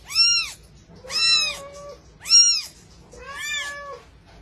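A very young kitten mewing four times, about once a second: high, thin mews that rise and then fall in pitch. The last mew is quieter and longer.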